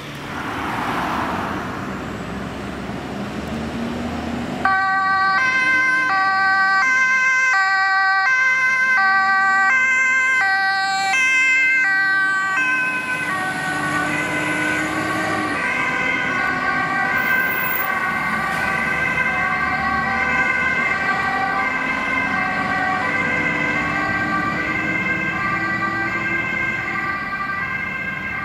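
Dutch fire engine's two-tone siren switching between a high and a low tone about every half second, starting abruptly after a few seconds of road noise; later the two tones blur into a steadier wail as the truck drives off. The truck's engine pitch rises underneath as it accelerates.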